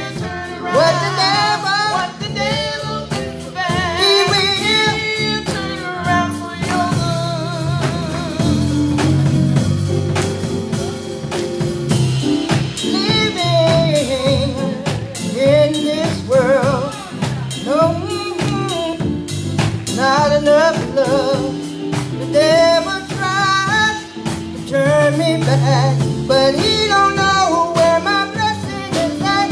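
Gospel singers singing a worship song into microphones, voices wavering with vibrato, over a live band with bass and drums.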